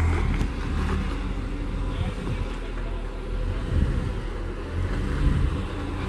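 Jeep Wrangler JKU engine running low and steady as the Jeep crawls slowly over boulders, with two brief louder thumps about four and five seconds in.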